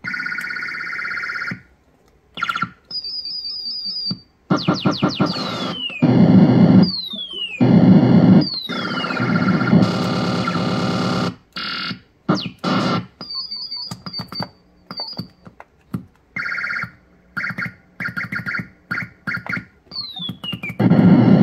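Circuit-bent "Space War" sound-chip toy playing a string of electronic space-battle effects that start and stop abruptly. It gives falling laser-like zaps, rapid pulsed high beeps and noisy buzzing bursts, with short gaps between them.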